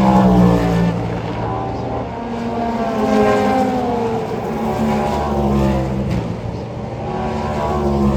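Race cars passing at speed, one after another. Their engine note rises and falls as each car goes by and shifts gear, with the loudest pass right at the start.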